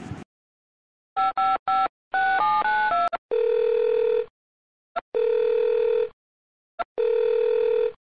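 Mobile phone placing an outgoing call: three short beeps, a quick run of tones at changing pitch, then the ringback tone sounding three times, each about a second long, while the call waits to be answered.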